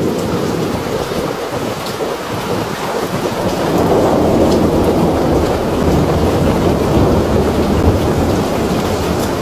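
Torrential rain in a strong windstorm: a dense, steady rush of rain and wind, slightly louder from about four seconds in.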